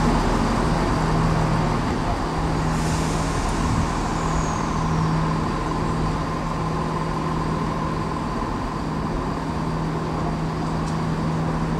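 Class 170 Turbostar diesel multiple unit arriving slowly at a platform: a steady low diesel engine hum with a faint steady whine above it.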